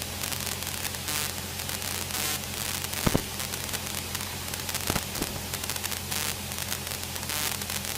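Light aircraft's engine drone heard through the cockpit intercom feed, low and steady under a constant static hiss, with a few short clicks about three and five seconds in.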